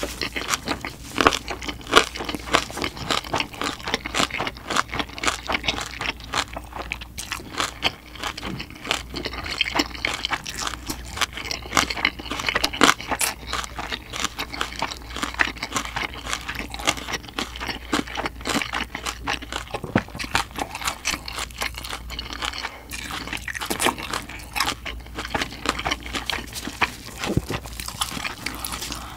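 Close-miked chewing and crunching of roast pork knuckle (schweinshaxe), a dense run of quick crunches and mouth clicks.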